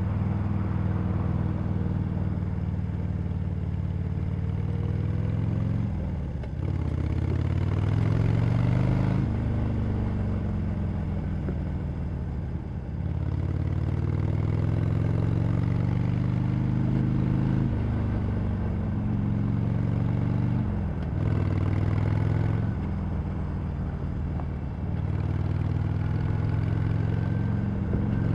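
Harley-Davidson Sportster Iron 883's air-cooled V-twin running through its stock exhaust under way. Its pitch climbs and then drops sharply several times as it pulls through the gears.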